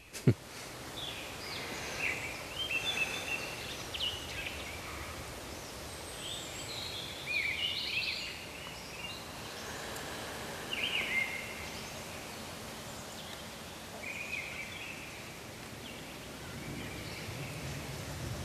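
Forest ambience: scattered short bird calls and chirping phrases from several songbirds over a steady background hiss.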